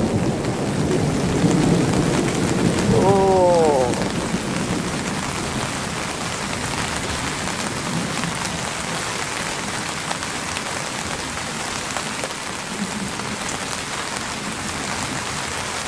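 Heavy rain pouring steadily in a thunderstorm, with a low thunder rumble over the first four seconds that then dies away. A brief falling voice-like sound comes about three seconds in.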